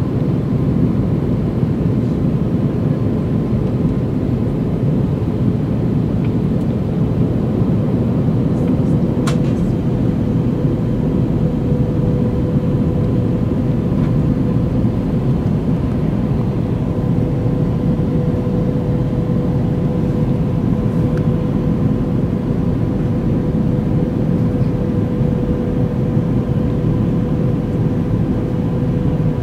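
Jet airliner cabin noise heard at a window seat: a loud, even rush of engines and airflow with a faint steady whine that grows a little stronger about ten seconds in. One brief click about nine seconds in.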